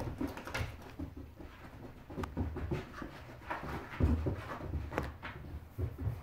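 A Boykin Spaniel moving about on carpet: soft, irregular paw thumps and rustles with some panting. The loudest thump comes about four seconds in.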